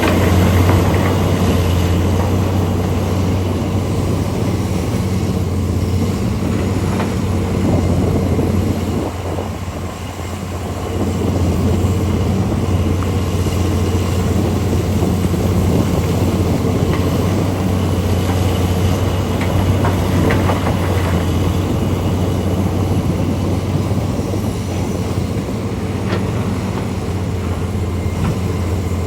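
Heavy diesel engines of large mining machinery, a Komatsu PC800 excavator and HD465 haul trucks, running with a steady low drone. The drone eases briefly about ten seconds in, then picks back up.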